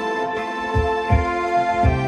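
Home electronic organ being played: a melody over held chords, with a steady low beat underneath.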